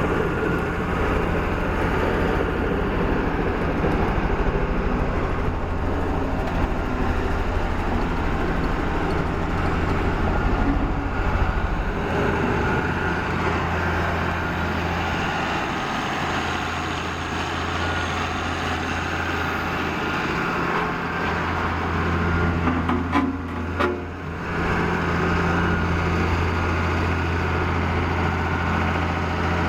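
Diesel engine of a 1992 Caterpillar CS563 single-drum compactor running steadily, with a deep hum. About three-quarters of the way through there is a short cluster of clicks and a brief dip in level.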